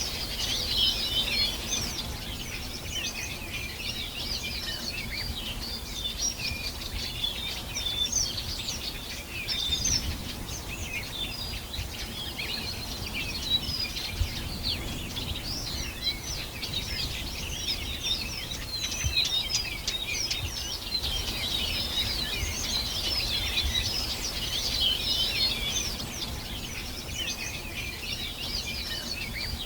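A dense chorus of many songbirds chirping and trilling at once, high-pitched and continuous, over a low background rumble.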